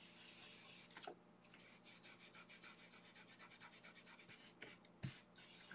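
Fingers rubbing soft pastel into construction paper to blend it, faint quick back-and-forth scrubbing at about six strokes a second, with a soft thump near the end.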